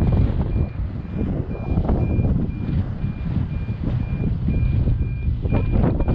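An electronic alarm beeping steadily, about two short high beeps a second, over heavy wind noise on the microphone and a low rumble, with a louder rush of noise near the end.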